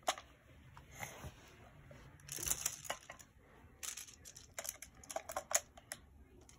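Faint light clicks of Picasso Tiles, plastic magnetic building tiles, knocking and snapping together as they are picked up and placed. The clicks come in small clusters, busiest in the second half.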